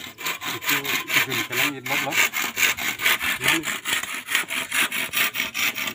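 Hand saw cutting through a green bamboo pole, a steady run of quick back-and-forth strokes at about four to five a second.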